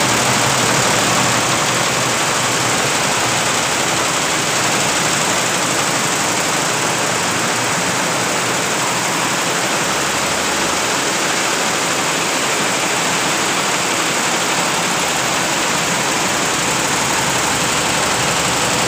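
Multi-head computerized embroidery machines running, a steady, loud mechanical noise. A lower hum joins about halfway through.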